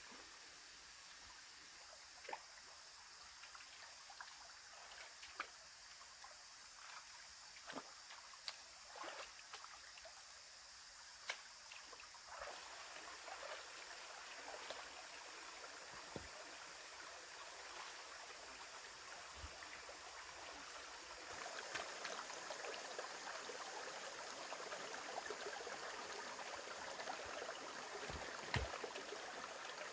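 Shallow rocky forest stream trickling steadily, with scattered splashes and knocks of footsteps wading through the water. The trickle grows louder about two-thirds of the way through.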